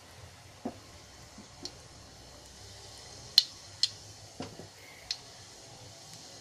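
Mustard and cumin seeds spluttering in hot ghee for a dal tempering: scattered sharp pops, about six, over a faint sizzle. The loudest pop comes a little past three seconds in.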